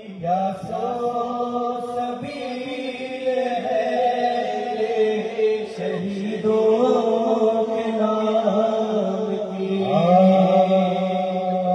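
Voices chanting a noha, a Shia lament for Imam Hussain, in long held notes that start anew a few times.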